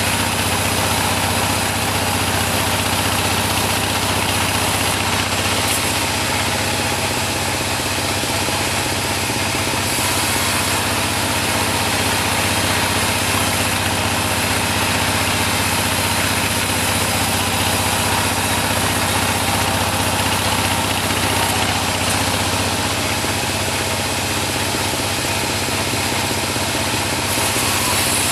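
Type-26 bandsaw sawmill running at a steady, unchanging pace: a constant machine hum with a dense hiss over it.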